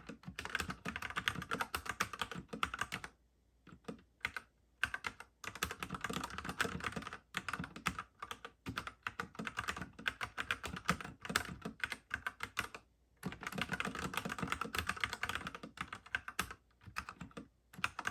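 Typing on a Whatgeek x 3inus Kebohub EE01 mechanical keyboard: rapid runs of key clicks and clacks in spurts, broken by short pauses, with keystrokes growing sparser near the end.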